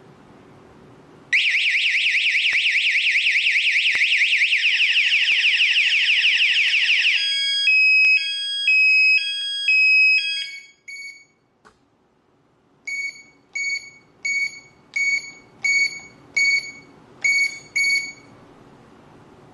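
AAS security alarm siren sounding. It plays a loud, fast-warbling tone for about six seconds, then a stepped pattern of alternating pitches for a few seconds. After a pause come eight short chirps, a little over one a second: the siren's door-chime warning that a sensor in the chime zone was triggered while the system is disarmed.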